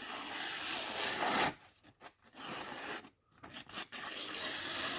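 Freshly sharpened hunting knife slicing slowly through a sheet of paper in three strokes, each a dry papery rasp with short pauses between: a paper test of the edge's sharpness, where slow cuts show up any leftover burrs.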